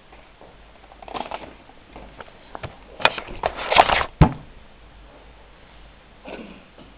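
Rustling, rubbing and clicks from a camera being handled against the microphone. The sound is densest about three to four seconds in and ends in a sharp knock.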